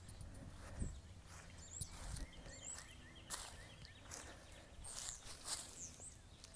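Irregular footsteps while walking, with wind rumbling on the microphone and a few faint bird chirps.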